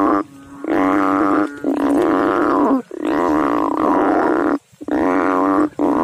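Frogs in shallow water calling loudly: about five long, pitched calls in a row, each lasting about a second, with brief gaps between them.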